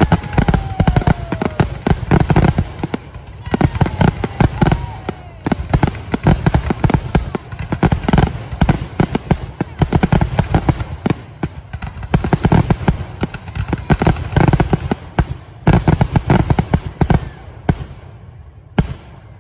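Aerial fireworks going off in a dense, rapid barrage of booming shell bursts and crackling. A descending whistle is heard in the first couple of seconds and again about four seconds in. The bursts thin out near the end, with a last loud bang.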